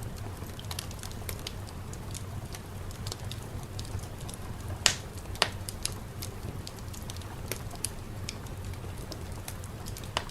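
Wood fire crackling in a fireplace: irregular sharp crackles over a steady low rumble, with two louder pops about halfway through.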